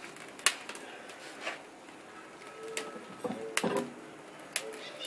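Kindling fire of toilet paper and thin plywood strips catching in a wood-burning stove: irregular sharp crackles and pops, about seven of them scattered through.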